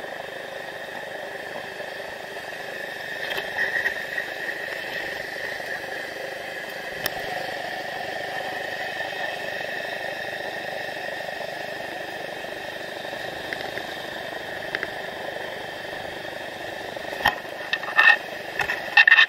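Steady rush of whitewater river rapids with a constant high buzz over it, and a few sharp knocks near the end.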